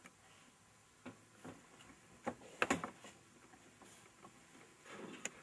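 Quiet room with a few scattered short clicks and knocks, the loudest cluster about halfway through and one more near the end.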